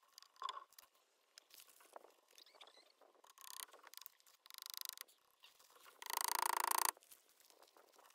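Hand saw cutting wood in short, quick strokes: faint scraping at first, a couple of brief bursts of strokes, then a louder run of rapid strokes about six seconds in.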